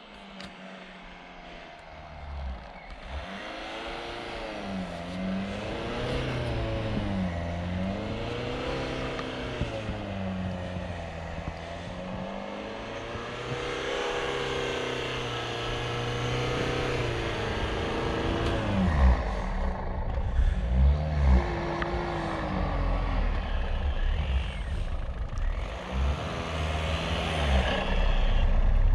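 Land Rover Freelander driving through deep snow, its engine pitch rising and falling again and again with the throttle as it ploughs along. It gets louder as it comes closer, with a heavier low rumble and a few knocks in the second half.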